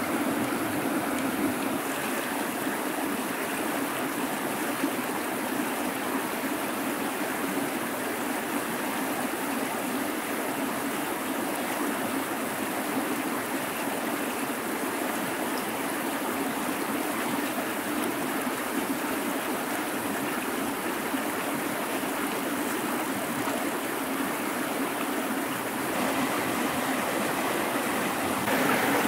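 River water rushing steadily as a constant, even wash, growing a little louder near the end.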